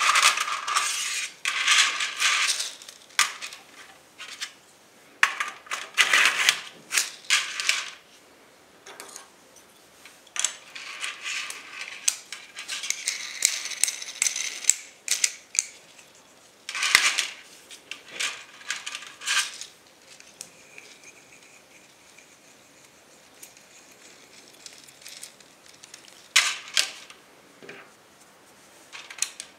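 Hard plastic parts of a 3D-printed filament spool holder being handled and fitted into a coil of filament, making clicking, clattering and rattling in irregular bursts with quieter spells between.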